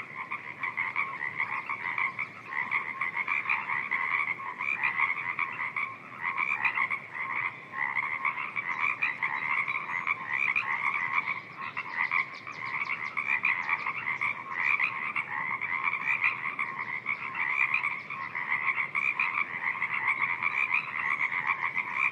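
A dense chorus of many frogs calling at once in a spring wetland, a continuous overlapping mass of quick croaking calls with no break.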